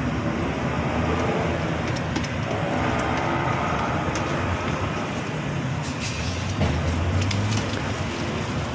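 Steady roadside traffic rumble, with a few light metal clinks from a wire noodle strainer against a stainless steel pot.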